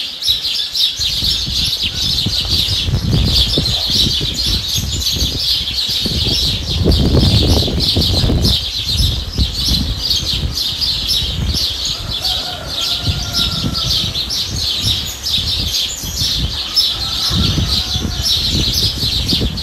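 Many small birds chirping densely and continuously, with an uneven low rumble underneath.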